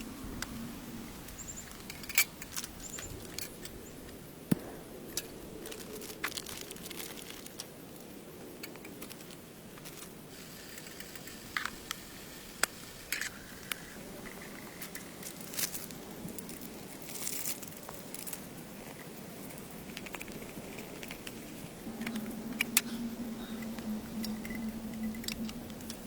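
Steady rain hiss with scattered sharp taps and crinkling handling noises, the taps coming irregularly every second or so. A low steady hum comes in near the end.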